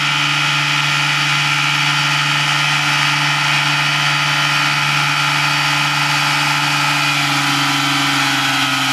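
A small engine idling with a steady, even hum.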